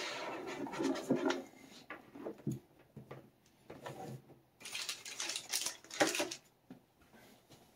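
Hands setting a coiled laptop charger cable and a pen in a plastic bag down on a tabletop: light rustling, scrapes and small taps in irregular bursts with quiet gaps, busiest in the first second or so.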